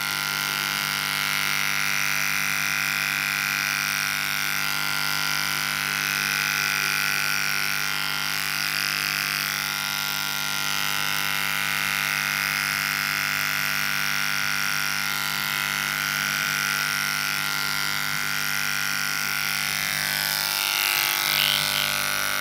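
Corded electric hair clippers running with a steady buzz as they cut the hair at the back of the neck.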